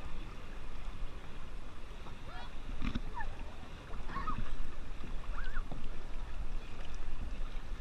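Shallow river water running over rocks, with a steady low rumble of wind on the microphone that gets louder about four seconds in. Distant voices of canoeists call out now and then.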